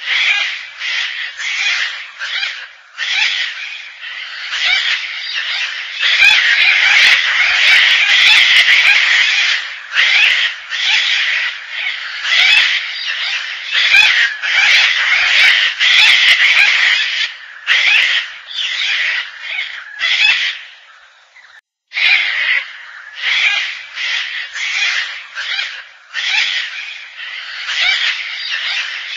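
Gang-gang cockatoo giving harsh, scratchy calls in quick succession, at times running together into long unbroken stretches. The calling stops briefly about two-thirds of the way through, then resumes.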